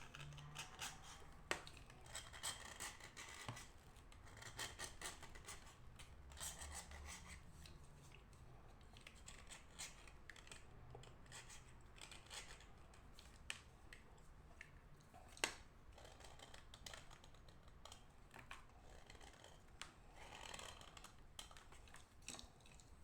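Pieces of edible chalk being broken apart by hand: scattered sharp snaps and crumbly crackling, with one louder snap about two-thirds of the way through. The chalk is dry.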